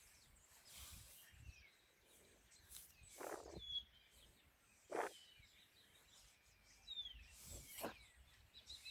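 Fjord horse snoring: short, rough breaths a couple of seconds apart, three of them louder than the rest. Small birds chirp faintly in between.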